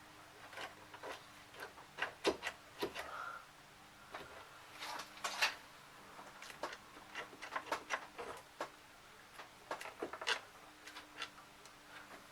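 Irregular clicks, taps and light knocks of hand tools and small screws being handled while an amplifier is disassembled, over a faint steady hum.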